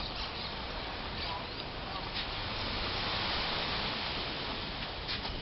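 Shovels digging into beach sand, with a few short scrapes and knocks, over a steady rushing noise.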